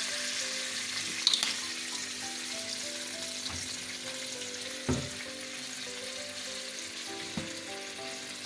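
Garlic, oil and soy-sauce mixture sizzling steadily in a hot nonstick wok while being stirred with a plastic slotted spoon, with a few brief knocks. Soft background music plays underneath.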